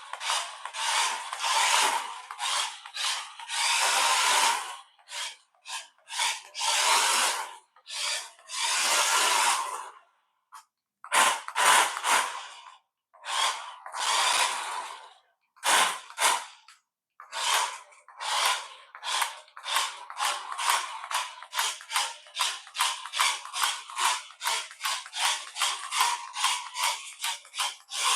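Small electric motor and gearbox of a toy-grade RC car whirring in repeated full-power bursts as it is driven. The bursts are irregular at first, then become a quick run of short blips, two or three a second, in the second half.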